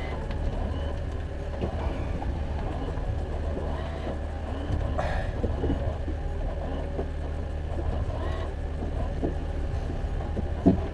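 Boat motor running steadily at trolling speed, a low drone, with a single sharp knock near the end.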